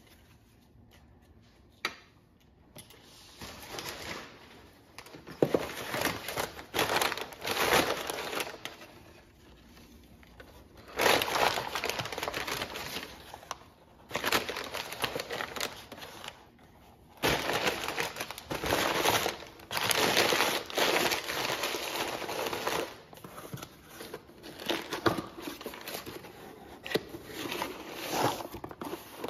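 Brown kraft packing paper crumpling and crinkling as it is handled, in irregular bursts. Near the end the rustling gets softer as a cardboard box lid is folded shut.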